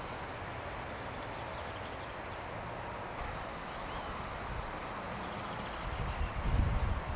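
Outdoor ambience: steady wind noise with a few faint bird chirps, and wind buffeting the microphone with a low rumble about six seconds in.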